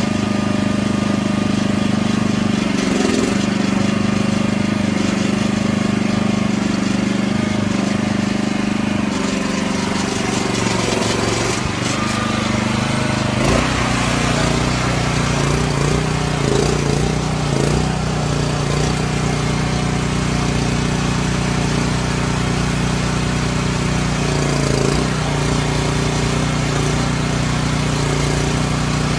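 Mini excavator's small engine running steadily under load while the machine digs. About halfway through, the engine note shifts lower.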